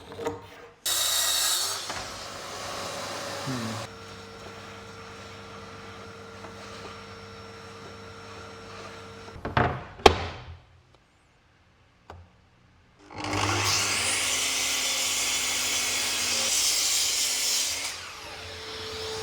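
Power saw crosscutting white oak boards: two cuts, each a loud burst of several seconds, with the motor humming between them and a sharp knock of a board near the middle.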